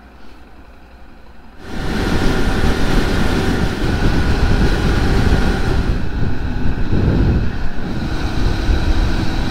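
Honda Monkey motorcycle on the move: wind rushing over the microphone with the single-cylinder engine running underneath. The noise rises sharply about two seconds in from a quieter start.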